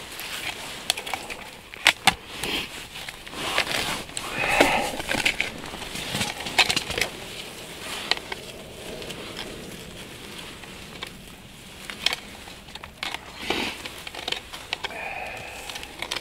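Snow and ice crunching irregularly, with scattered sharp clicks and knocks that are loudest in the first half.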